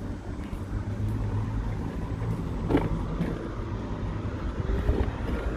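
Electric scooter riding over brick paving: a steady low rumble from the tyres and the ride, with a single knock about halfway through.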